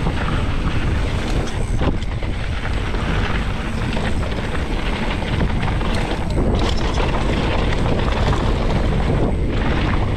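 Wind rushing over an action camera's microphone, mixed with mountain bike tyres rolling fast over a dry, loose dirt trail.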